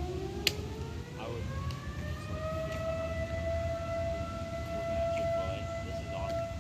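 Air raid siren wailing: its pitch climbs from a low point over about two seconds, then holds steady. A single sharp click about half a second in.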